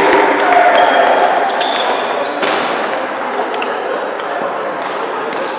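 Table tennis balls clicking against bats and tables, with several rallies going at once, over a background of voices in a large echoing sports hall.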